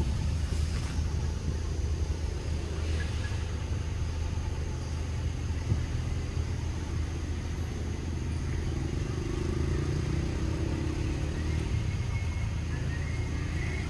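Steady low motor rumble, like a running engine, with a somewhat higher drone swelling briefly past the middle.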